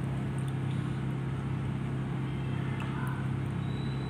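Steady low hum with an even hiss of background noise, unchanging throughout.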